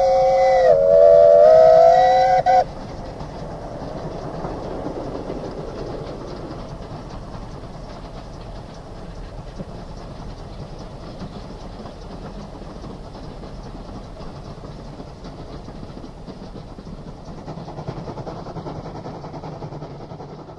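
Steam locomotive whistle sounding two notes together, dipping in pitch briefly about a second in and coming back, then cut off sharply about two and a half seconds in. After it comes the steady rumble of the moving steam train, swelling a little near the end.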